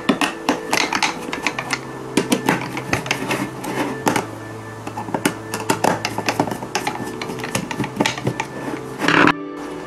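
Screws being turned out of a plastic drill battery case with a hand screwdriver: many light clicks and scrapes of the screwdriver tip and the casing, over soft background music with held notes.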